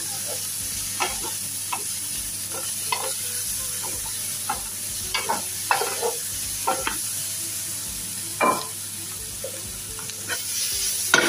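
Tofu and vegetables sizzling steadily in hot oil on high heat while a utensil stirs them, scraping and tapping against the pan at irregular intervals, with one louder strike near the end.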